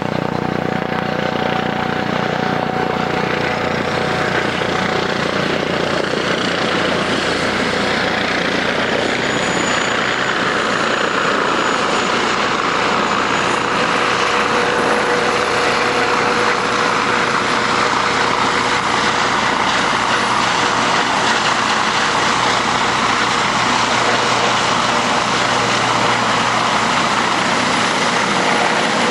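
Eurocopter EC155B helicopter on its landing approach and in a low hover: the steady noise of its twin turbine engines, five-blade main rotor and Fenestron ducted tail rotor, growing slowly louder as it comes in close.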